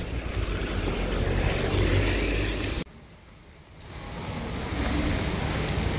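Wind buffeting the microphone: a steady low rumble that drops out abruptly about three seconds in and builds back up a second later.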